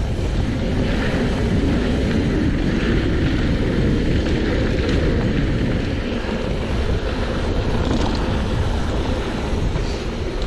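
A mountain bike descending a dirt trail at speed: a steady rush of wind on the camera microphone over a dense low rumble from the tyres and bike on the trail.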